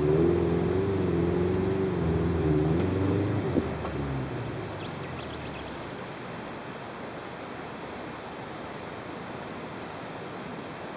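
First-generation Subaru Forester's flat-four engine labouring up a very steep, loose climb, its revs wavering up and down, with one sharp click about three and a half seconds in. The engine fades out after about four seconds, leaving a steady hiss.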